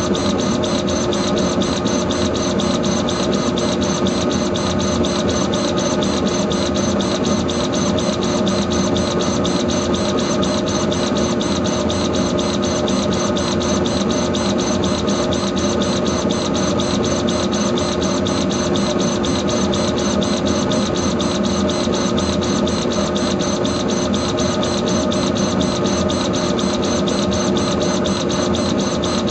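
Laser engraver raster-engraving an anodized aluminum card: the engraving head sweeps rapidly back and forth in an even rhythm over a steady machine hum.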